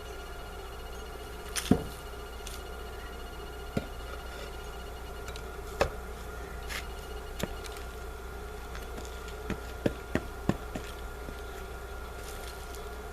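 Scattered sharp knocks and taps over a steady low hum: a loud one about two seconds in, a few single ones after it, and a quick run of four or five near the end.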